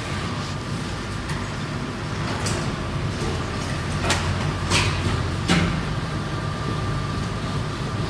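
Steady low hum of factory machinery, with a faint steady whine above it. Several sharp clicks and knocks come between about two and a half and five and a half seconds in.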